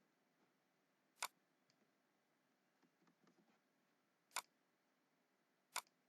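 Three sharp single computer mouse clicks, spaced a few seconds apart, over near silence.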